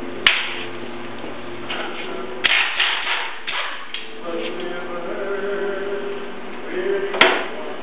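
Sharp metal clanks from wrenches and parts on a steel mower deck: one near the start, a short run of clatter about two and a half seconds in, and another near the end, over music with singing playing in the background.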